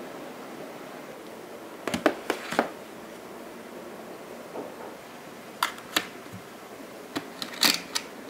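Light knocks and clicks of a paperboard box being set into a drawer among plastic organisers, then of small stationery items being placed into its compartments, in three short clusters over a steady low hiss.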